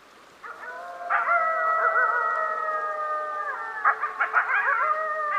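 A pack of wolves howling in chorus: several long overlapping howls at different pitches begin about half a second in and slowly fall, then break into short wavering yips near the end.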